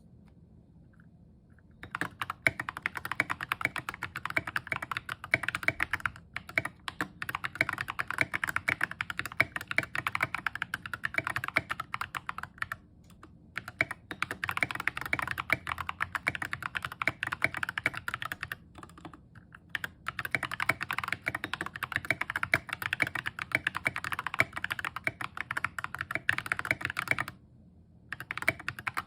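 Fast typing on a mechanical keyboard: an Epomaker GK61xs with stock Ajazz Banana tactile switches, tape-modded, with lubed stabilizers and tall SA-profile keycaps. Dense key clicks start about two seconds in and run in bursts with brief pauses.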